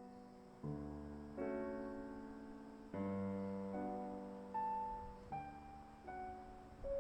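Slow, gentle solo piano music: sustained chords struck every second or so and left to fade, with a few single higher notes in the middle.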